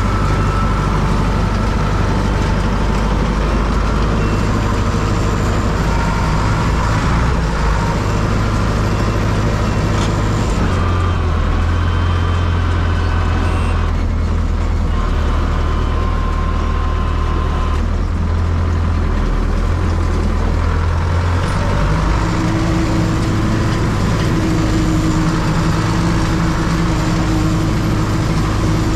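Heavy diesel engine of farm harvest machinery running steadily. Its note drops about a third of the way in and comes back up about two-thirds in.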